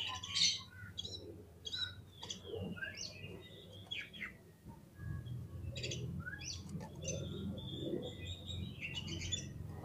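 Oriental magpie-robin (kacer) singing an agitated 'fighter' song: a rapid string of short, sharp chirps and whistled notes, some sliding in pitch. A low rumble runs underneath in the second half.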